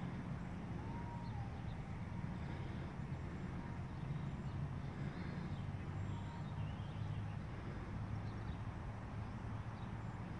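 Outdoor background: a steady low rumble with a few faint, short bird chirps now and then.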